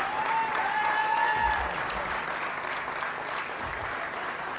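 Concert audience clapping and cheering, slowly dying down, with a high held tone over the first second and a half.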